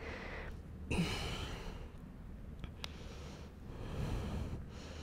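A woman breathing out audibly through a close microphone: one long exhale about a second in and a softer breath near the end, over a faint low room hum.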